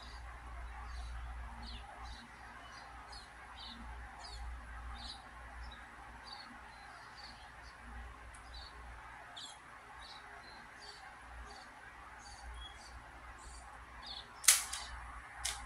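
Faint bird chirps scattered over a low steady hiss, then two sharp clicks about a second apart near the end as the plastic puzzle cube is handled.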